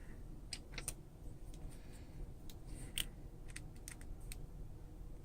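Small repair tools and phone parts clicking and tapping as the iPhone is taken apart: faint, irregular sharp clicks, roughly a dozen, spaced unevenly.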